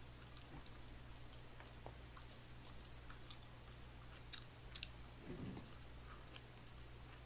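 Faint chewing and mouth sounds with a few small clicks, over a steady low electrical hum.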